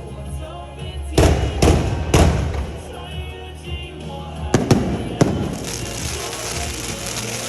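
Fireworks going off: about six sharp bangs of shells bursting, in two clusters about three seconds apart, over a steady crackle. Music with held tones plays underneath.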